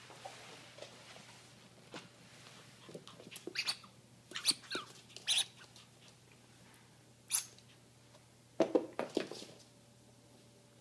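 Orange rubber squeak toy squeaking in a string of short, sharp squeaks as an American Eskimo puppy bites and pounces on it, the squeaks bunched between a few seconds in and near the end.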